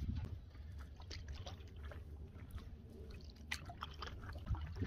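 Canoe paddling: faint water splashes and drips from a wooden paddle, heard as scattered small ticks over a steady low rumble.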